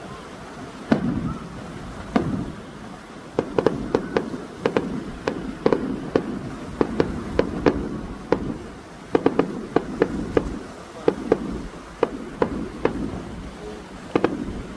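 Fireworks display: a string of irregular sharp bangs, often two or three in quick succession, with a low rumble after some of the bigger bursts.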